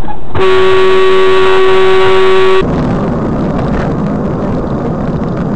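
A vehicle horn held in one long, steady note for about two seconds. It cuts off abruptly and gives way to steady road and engine noise from inside a moving car.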